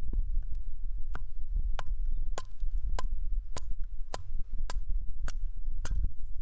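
A steady series of sharp taps, about nine of them, one roughly every 0.6 s, starting about a second in, over a constant low rumble.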